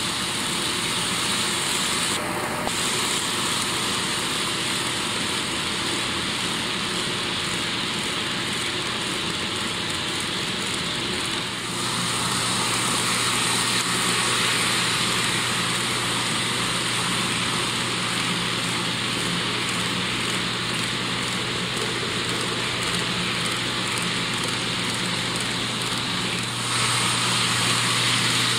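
HO scale model train running: the model diesels' electric motors and gears whirring and the wheels rolling over the rails in a steady rushing noise, with a low hum that grows stronger about twelve seconds in.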